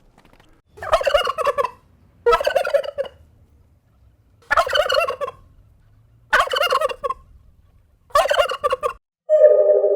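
A farm bird gives five loud, rapidly warbling calls, each about a second long and spaced about two seconds apart. A steady, sustained musical tone begins near the end.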